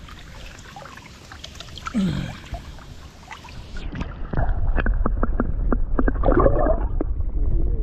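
Camera microphone dipped into creek water: a faint hiss with some splashing, then about four seconds in the sound turns suddenly muffled as the microphone goes under, leaving a low underwater rumble with many quick clicks and bubbling.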